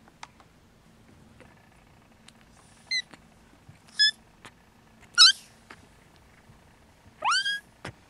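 Six-week-old Snowshoe kittens mewing: four short, high-pitched mews a second or so apart, the third the loudest and the last longer, sliding up in pitch.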